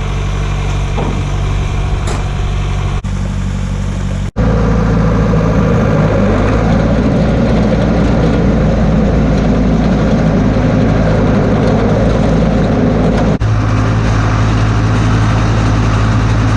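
A vehicle engine running steadily, heard in short edited segments: the sound cuts and its pitch pattern changes a little over four seconds in and again about thirteen seconds in.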